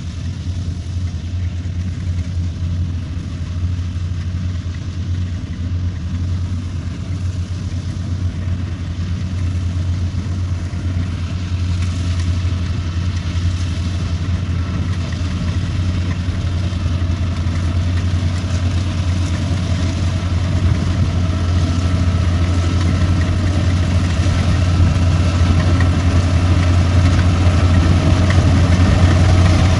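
Kubota rice combine harvester's diesel engine running steadily under load while it cuts ripe paddy rice, a low, even hum. It grows gradually louder as the machine comes closer.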